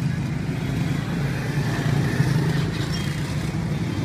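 Steady low hum of motor traffic.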